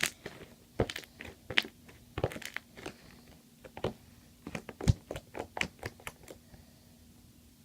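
Slime being kneaded and stretched by hand to work pigment in, making a string of sharp sticky clicks and pops that stop about six and a half seconds in.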